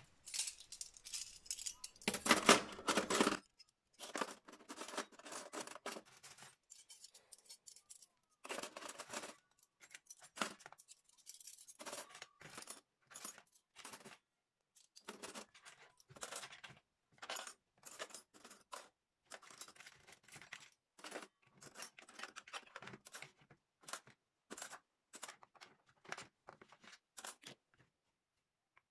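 Stainless steel forks and spoons clinking and rattling as they are laid by hand into a plastic cutlery tray in a drawer: a dense clatter for the first few seconds, then scattered single clinks.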